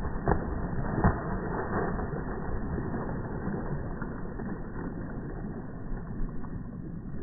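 Slowed-down sound of pigeons' wings flapping as they take off: a low, muffled rushing noise, with a few sharp claps in the first second or so.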